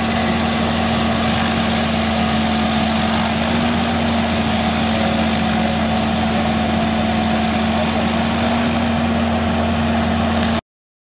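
Rayco RG74 stump grinder running steadily as its cutter wheel grinds into a tree stump, throwing wood chips. The sound cuts off abruptly about ten seconds in.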